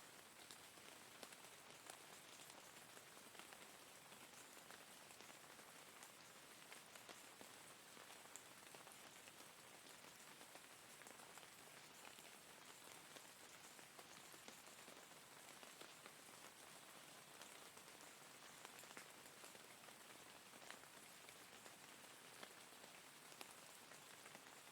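Steady rain falling on a surface, a soft continuous patter with many individual drops ticking through it.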